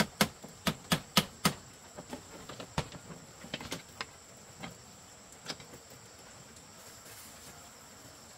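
A run of sharp knocks, like a tool striking wood, about three a second at first, then slowing to a few scattered taps that stop about halfway through. A steady high insect trill runs underneath.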